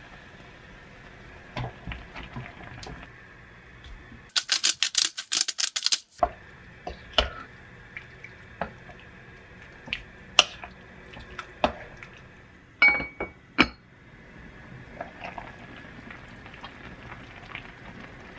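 Cooking in a pot of fish cake soup: a quick run of rapid clattering ticks, then a wooden spatula knocking against the pot a handful of times while stirring, then the soup simmering and bubbling with small ticks.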